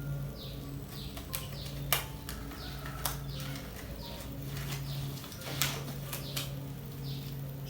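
Small birds chirping in short, repeated falling calls over a low hum that comes and goes, with a few sharp clicks or knocks.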